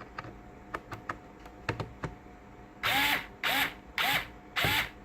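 Fanttik S1 Pro cordless electric screwdriver's motor run in four short bursts of about half a second each, each starting with a quick rise in pitch as it spins up. A few light clicks come before the bursts.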